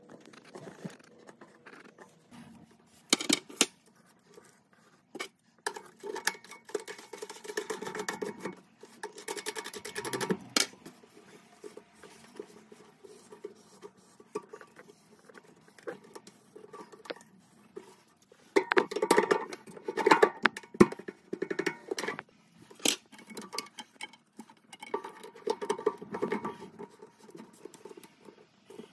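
Hands working a stainless steel sink basket strainer and its plastic drain fittings: scattered clicks and taps of metal and plastic parts, with several longer stretches of scraping and rattling as the threaded parts are turned and fitted together.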